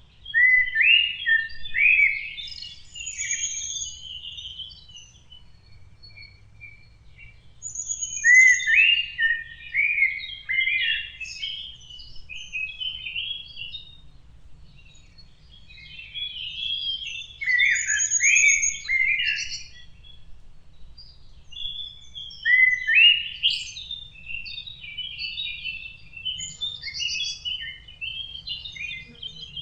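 A songbird singing in long, varied phrases of chirps and sweeping notes. Four phrases come roughly every seven seconds, with short pauses between them.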